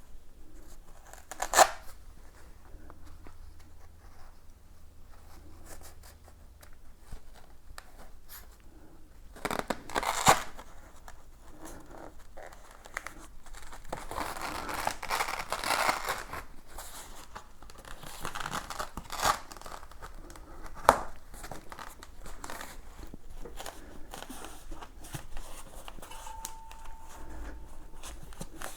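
Industrial-strength Velcro strips and pads being handled: tearing and rustling, with a longer stretch of tearing noise midway, and a few sharp clicks.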